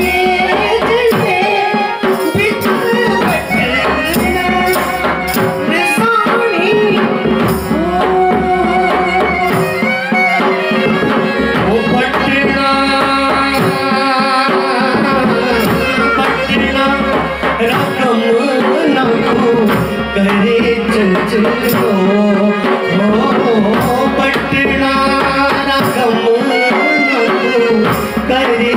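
A Himachali Pahari folk song sung solo into a microphone, with keyboard accompaniment and a hand drum keeping a steady beat.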